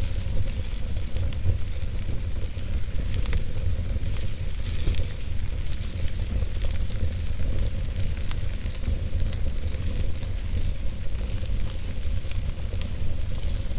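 Fireplace fire burning steadily, crackling and hissing with many small irregular pops over a low rumble.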